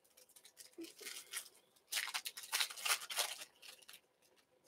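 A foil trading-card pack being torn open by hand: faint crinkling rips of the wrapper, one short stretch about a second in and a longer one in the middle.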